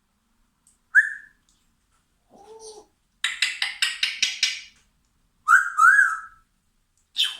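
Pet parrot vocalising: a short whistle, a low hoarse note, then a quick run of raspy pulses and two whistled rise-and-fall notes. This is the parrot's mimicry of a coffee machine.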